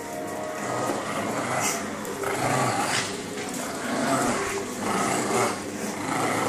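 Two pugs play-fighting with a person's shoes, making dog noises and scuffling in irregular bursts.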